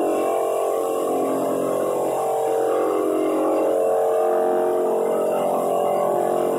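Floor drum sander running while it is pushed across a hardwood floor, together with a shop vacuum pulling its dust through a cyclone separator. A loud, steady drone whose pitch rises and falls slowly as the load changes.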